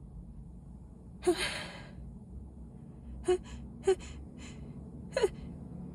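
A woman's gasping in-breaths as a sneeze builds during a sneezing fit from dust and illness. There is one long, sharp gasp about a second in, then three short catching gasps, with the sneeze still held back.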